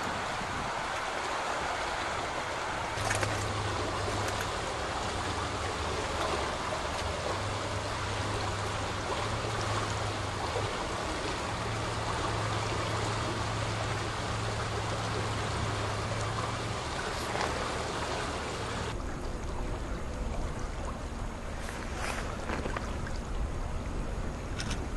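Floodwater of a river in spate rushing fast under a bridge, a steady loud rushing, with a low steady hum beneath it for much of the time. About three quarters of the way through the rushing cuts off abruptly, leaving a quieter, lower rumble of wind and water.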